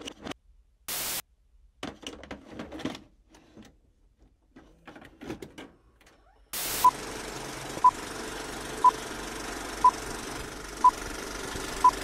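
A VHS cassette pushed into a VCR: clicks and clunks of the tape and loading mechanism, with a brief burst of static about a second in. About halfway through, a steady tape hiss comes on, with a short beep once a second.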